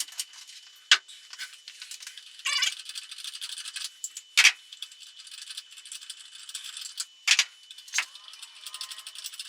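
Floor jack being worked under a pickup's rear differential to lift it: scattered metallic clicks and rattles with a few louder clanks, and a brief quick ratcheting run about two and a half seconds in.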